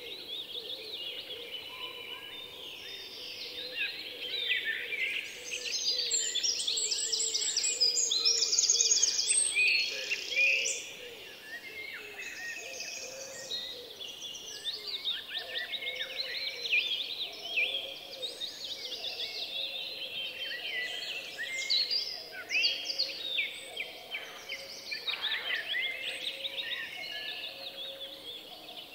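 Several songbirds singing together, a busy mix of chirps and rapid trills, loudest from about six to ten seconds in.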